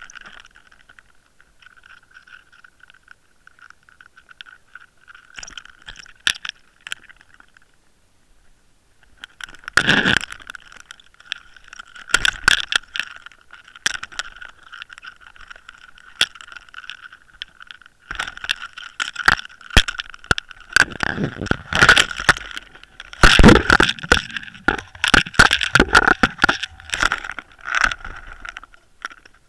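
Handling noise from an underwater camera hauled aboard a fishing boat: knocks, scrapes and rattles of the camera housing and its line swivel against the deck and fittings. They come only now and then at first and pile up thick in the second half, over a steady high whine.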